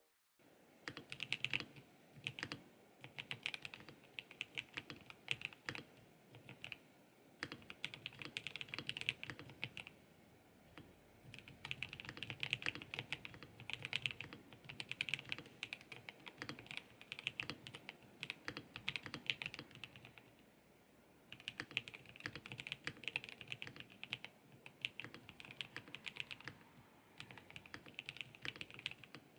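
Typing on a MelGeek Mojo84 Plastic Advance mechanical keyboard with Kailh custom box plastic switches: rapid runs of key clicks, with brief pauses about ten and twenty seconds in.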